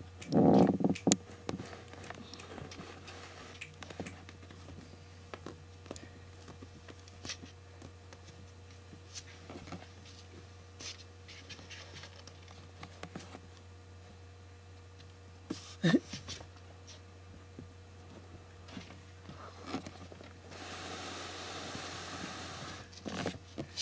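Kittens scrabbling at and inside a cardboard tube: scattered light scratches, taps and rustles, with a loud bump just after the start, a sharp knock about two-thirds of the way through, and a few seconds of steady rustling near the end. A low hum runs underneath.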